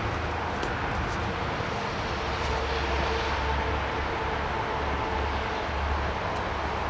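Steady low engine rumble with a faint droning hum that drifts slightly in pitch, from a machine other than the parked excavator, with a few light clicks.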